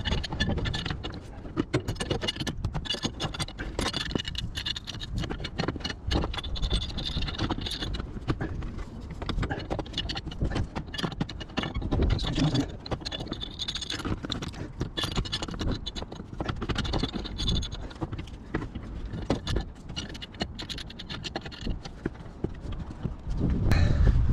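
Hand tools on metal: rapid irregular clicking and clinking as bolts on the compressor's air-oil separator housing are tightened down.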